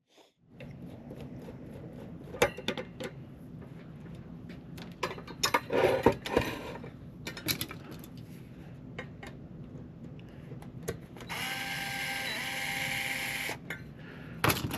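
Small metal clicks and a clatter of parts being handled, then an electric screwdriver motor runs steadily for about two seconds, driving out a screw from the power supply chassis.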